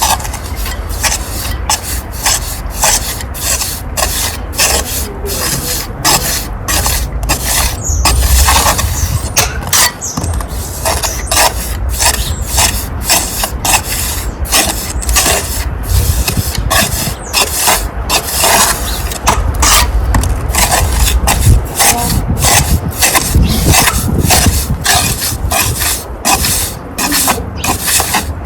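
Steel pointing trowel scraping mortar and pressing it into the horizontal brick joints, in quick repeated strokes about twice a second.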